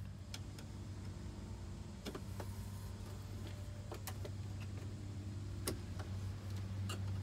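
A few light plastic clicks and knocks as a hand works at a wiring-harness connector in a car's engine bay, the clearest near the end, over a steady low hum.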